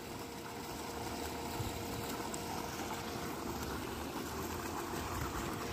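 Steady rushing wash of water from a small cascade falling into a swimming pool.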